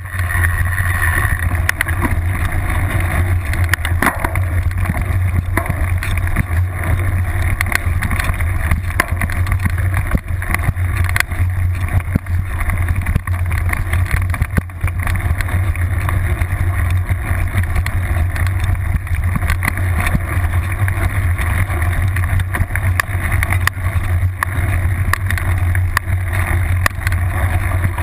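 Mountain bike ridden fast over a rough, overgrown trail, heard from a seatpost-mounted action camera: a steady low rumble of wind and vibration on the microphone, with frequent clicks and rattles from the bike and the camera mount and tall grass brushing past.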